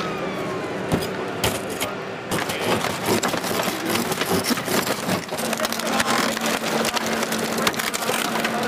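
Emergency vehicle siren winding down at a crash scene, followed by scattered knocks and clatter over a steady low hum that starts about five seconds in.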